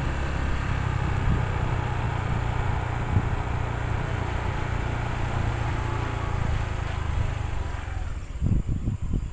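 Heavy truck running close by with a low-loader trailer carrying a tracked excavator: a steady low engine rumble mixed with road and wind noise. A few low thumps come near the end.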